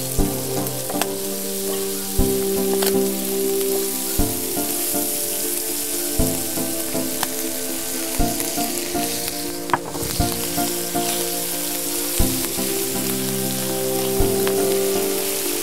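Squid, red pepper and garlic sizzling and frying in oil in a paella pan, stirred with a wooden spatula, with grated tomato going into the sofrito. Soft background music with chords changing about every two seconds plays underneath.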